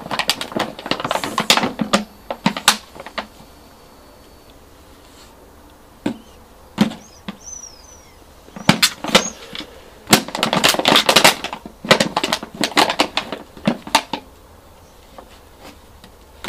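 Puppy chewing and crushing an empty plastic PET bottle: bursts of rapid crackling and crunching plastic, with a lull of several seconds in the middle.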